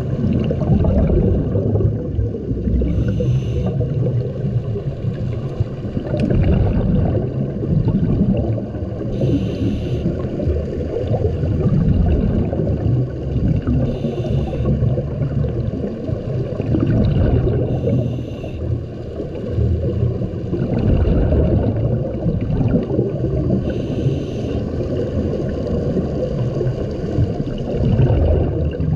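Underwater sound of a scuba diver's breathing: a steady low rumble of water moving past the camera housing, with a short burst of exhaled regulator bubbles every four to six seconds.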